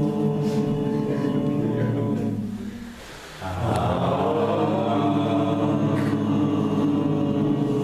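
A group of voices holding a long, steady chanted tone together as a voice exercise. The tone fades out about three seconds in and comes back in full a moment later.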